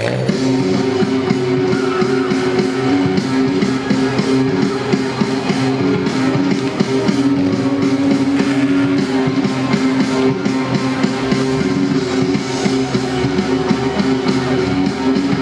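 Rock music with electric guitar and drums, played over the arena's PA system.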